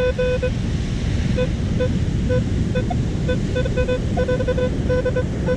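Metal detector giving short beeps at one steady pitch, singly and in quick irregular runs, as the coil is swept over a target. A steady low rumble of surf lies underneath.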